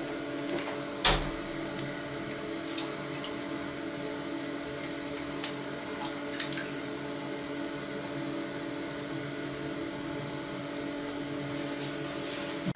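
A toothbrush scrubbing small diecast metal model-car parts in a plastic tub of water, with sloshing and light clicks, and one sharp knock about a second in. This is washing the parts during a paint-stripping restoration. A steady hum of several held tones runs underneath.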